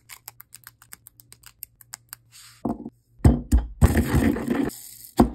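Fresh mint leaves snapped off their stems, a quick run of small snaps about eight a second. About three seconds in, a wooden pestle grinding garlic in a ridged mortar, a dense gritty rasp with low thuds.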